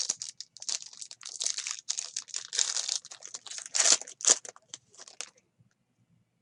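Plastic trading-card pack wrapper being torn open and crinkled, a dense run of crackling with two louder rips near the end, stopping a second before the end.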